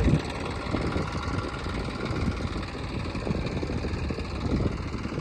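Diesel engine of a JCB 3DX backhoe loader running steadily with an uneven low rumble.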